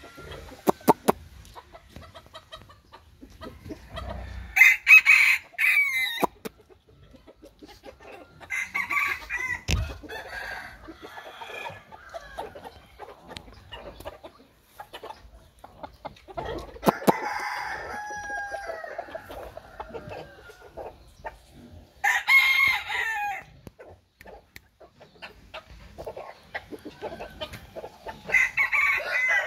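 Rooster crowing about five times, each call a second or two long, with quiet gaps and a few faint clicks between.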